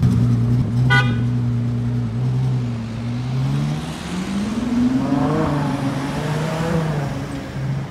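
Ferrari 812 GTS's naturally aspirated V12 breathing through a Novitec exhaust, driving off gently at low revs; its note rises in pitch between about three and five seconds in, then holds.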